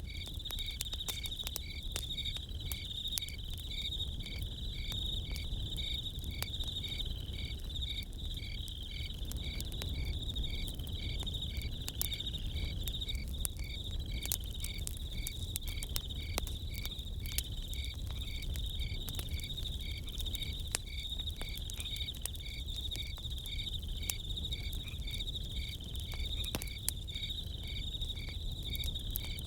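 Crickets chirping in a steady high trill, with a second insect call pulsing about twice a second, over the scattered small crackles of a campfire.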